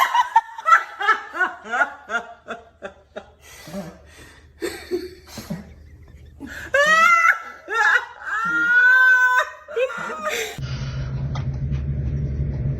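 People laughing hard in quick, repeated bursts, then louder laughter with a long high-pitched squeal. About ten seconds in the sound cuts abruptly to a steady low hum.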